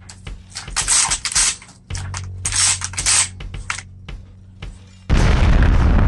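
Shotgun action being worked by hand, a quick run of sharp metal clicks and short sliding scrapes over background music. About five seconds in, a sudden loud boom sets in and carries on.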